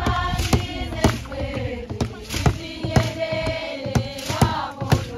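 A group of voices singing a Zulu traditional song together, with sharp beats about twice a second.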